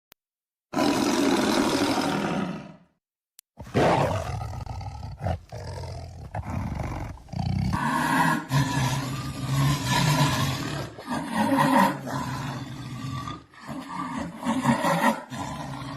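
Big cat roaring: one roar of about two seconds, then after a short pause a long run of repeated roars.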